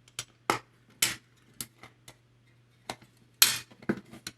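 Needle-nose pliers and steel wire clicking and tapping against a 3D-printed plastic form as the wire is pressed down into its groove. About a dozen light, irregular clicks, the loudest about three and a half seconds in.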